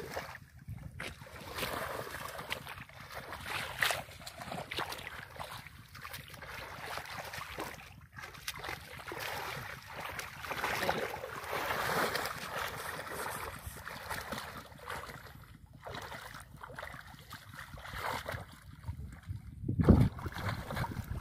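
Shallow muddy water sloshing and splashing unevenly as a person crawls through it on hands and knees, groping under a freshly thrown cast net. Wind rumbles on the microphone throughout, and there is a louder bump near the end.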